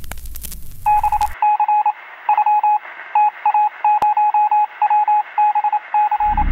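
Crackling static that cuts off about a second in, then a single-pitch electronic beep keyed on and off in uneven groups of short and long beeps, as in Morse code. It sounds thin, as if heard over a radio or telephone line, with one sharp click midway.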